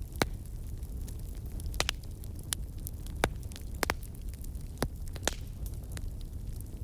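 Wood fire crackling in a fireplace: irregular sharp pops and snaps, a dozen or so, over a steady low rumble of the burning fire.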